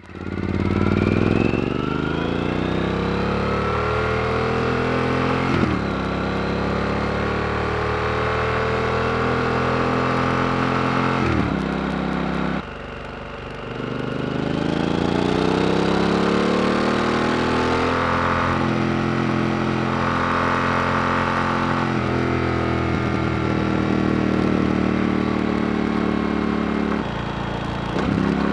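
Yamaha XT1200Z Super Ténéré's parallel-twin engine through a Yoshimura RS-4 exhaust with the baffle removed, the bike accelerating through the gears: the pitch climbs in each gear, with upshifts about five and eleven seconds in. The throttle closes briefly around thirteen seconds, then the engine pulls up again and runs on at a fairly steady speed.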